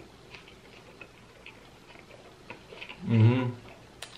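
Close-miked chewing of a street taco: faint, scattered wet mouth clicks, then a loud hummed "mm-hmm" of approval about three seconds in, and one sharp click near the end.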